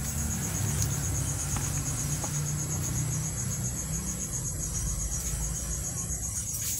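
Crickets chirping in a steady, rapid, even pulse, high-pitched, over a low steady rumble.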